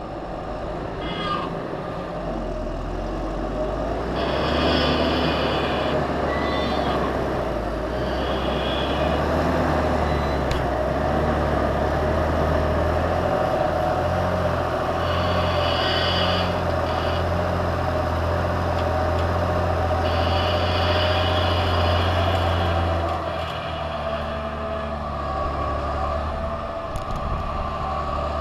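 Fendt Vario tractor's six-cylinder diesel engine working under load while pushing maize silage on the clamp. The engine builds up over the first few seconds, holds a steady, loud note and eases off slightly about 23 seconds in. High-pitched squeals come and go over it.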